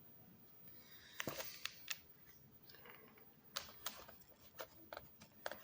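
Faint handling of a book: a page rustling over about a second in, then scattered light clicks and taps.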